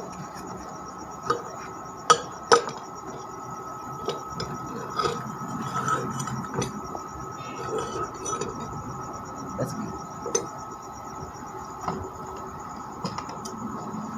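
Steel workpieces being handled and set in place for welding: scattered metallic clinks and knocks, with two sharp louder knocks about two seconds in, over a steady faint high whine.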